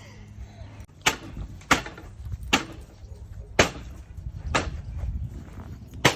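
A prosthetic leg in a steel-toe shoe kicking a fence, six hard knocks at roughly one a second.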